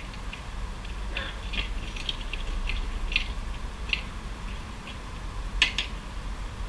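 Scattered light clicks and taps of small metal hardware, bolts, nuts and mounting brackets, being handled and fitted into the metal rails of a rooftop tent base, with a sharper double click about five and a half seconds in.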